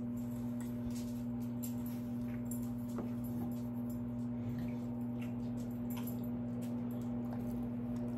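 Steady low electrical hum with a few faint light clicks and taps from thin wooden kit pieces and a pencil being handled.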